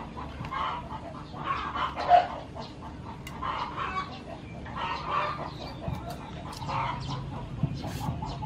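Chickens clucking over and over in short calls about once a second, with a few sharp clicks of a knife scraping the skin off a gourd in the second half.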